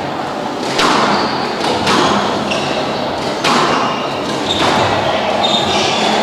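Squash ball struck by rackets and smacking off the court walls in a rally, four sharp hits about a second apart, echoing in the hall, with short high squeaks of court shoes on the floor between them.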